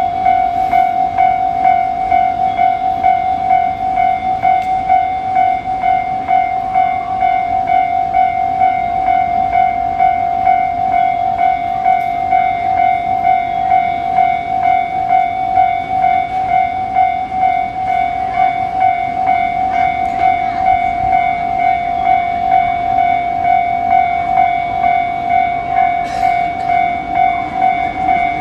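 Japanese railway level-crossing warning bell ringing steadily: one loud electronic ding repeated quickly and evenly, a little over twice a second.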